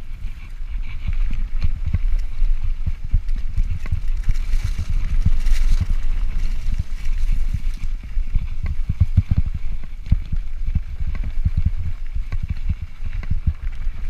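Wind rumbling on a chest-mounted action camera's microphone, with a rapid run of knocks and rattles as a 2017 Yeti SB5 full-suspension mountain bike rolls over rough dirt singletrack.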